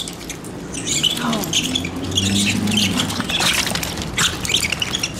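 A rat squealing over and over in short high squeaks as a terrier grips and shakes it, with scuffling. About a second in, a lower drawn-out sound comes in for a couple of seconds.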